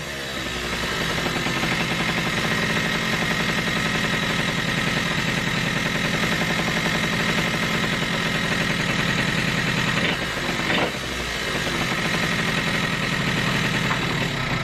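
Piaggio Zip 2000 scooter's rebuilt engine running steadily at a fast idle, with a brief change in revs about ten seconds in. Its carburettor lacks its vacuum nipple, leaving an open port that the owner says lets in false air.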